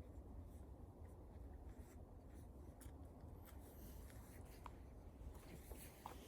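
Bonfire crackling faintly: scattered small snaps and ticks from the burning wood, a little more frequent near the end, over a low steady rumble.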